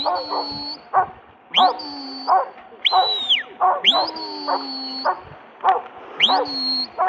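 Huntaway dog barking repeatedly, about two barks a second, as it drives sheep up the hill in a straight hunt, while the handler blows a series of loud rising shepherd's whistles as commands.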